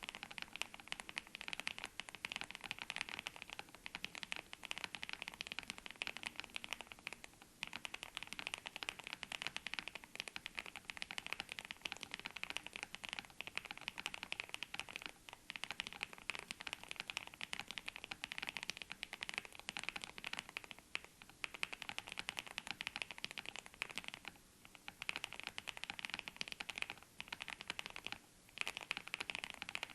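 Typing on a mechanical keyboard fitted with Gateron x Skyloong Silver linear switches: a rapid, continuous clatter of keystrokes with a few short pauses.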